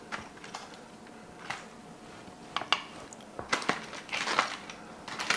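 A few light clicks and taps of a serving utensil and a smoked spare rib being set down on a white ceramic plate, with a short rustle of handling a little past halfway.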